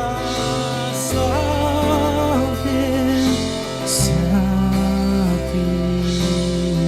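Live worship music: a slow song with a voice holding long, wavering notes over sustained bass chords that shift every few seconds, and a bright high shimmer swelling in about every two to three seconds.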